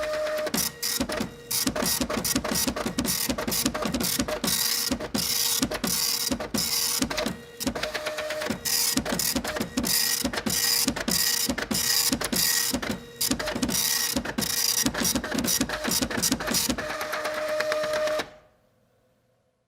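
Printer at work: a fast, dense chatter of mechanical clicks over a steady motor tone, with a few brief pauses. It fades out about 18 seconds in.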